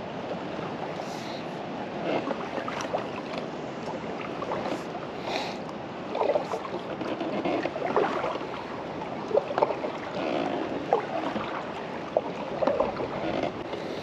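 A kayak being paddled: water splashes and drips from the paddle strokes, with irregular knocks against the plastic hull that come more often in the second half, over a steady hiss of wind and water.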